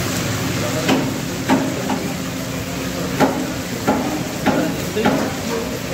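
Whole chickens deep-frying in a large steel wok of hot oil, a steady sizzle, while a long-handled metal spatula stirs them. Repeated sharp knocks of the metal spatula against the wok, about seven spread irregularly through the sizzle.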